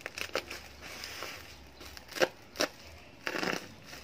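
Plastic film and bubble wrap around a parcel crinkling and crackling as fingers pick and tug at it, in a few short sharp crackles with a longer rustle past three seconds in.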